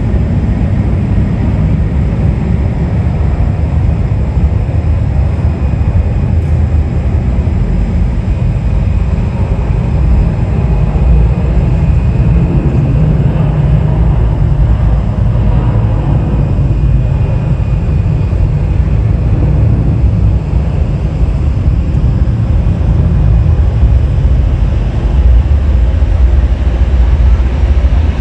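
Jet airliner engines: a loud, steady low rumble, with a faint thin whine rising out of it for a few seconds midway.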